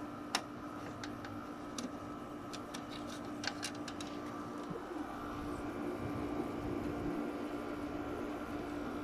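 Quasar (LG) 5250 BTU window air conditioner running steadily on low fan with its LG Hero compressor on, a steady hum with a faint higher tone above it. Several light clicks and taps come in the first four seconds as the unit is handled.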